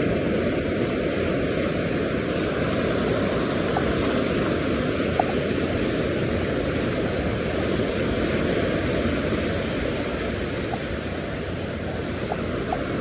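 Steady rumbling surf and wind noise on the microphone, with a few faint ticks.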